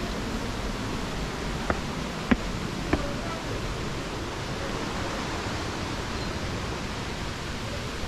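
Steady rushing of spring water. Three short taps come about half a second apart around two seconds in.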